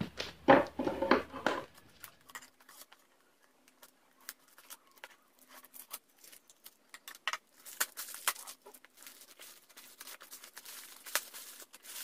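Scissors snipping through a plastic mailing bag, then the thin plastic crinkling and rustling as it is torn and pulled away from a cardboard box. The snips come sparsely at first, and the crinkling grows denser over the last few seconds.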